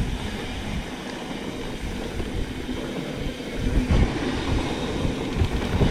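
Mountain bike rolling over a rough dirt trail: tyre rumble with irregular knocks and rattles from the bike, growing heavier about two-thirds of the way through.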